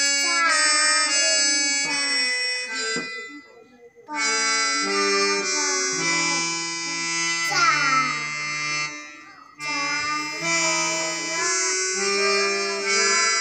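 Portable electronic keyboard played by a child: a slow melody of held notes in a sustained, wind-like voice, with lower held notes underneath. The playing stops for about a second around three seconds in and briefly again near nine seconds.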